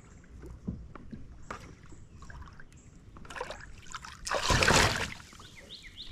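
Kayak paddling: the paddle dips and swishes through the water with small knocks and drips, and a louder rush of water comes about four and a half seconds in.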